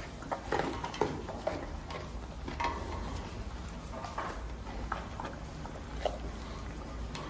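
Sun bear at the bars of its bedroom reaching for food in a tray: irregular light knocks and scrapes over a low steady hum.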